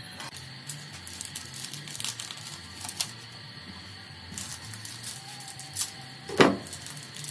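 Broth of a sponge gourd soup heating in a metal wok, with scattered light ticks and pops, and one louder knock about six seconds in.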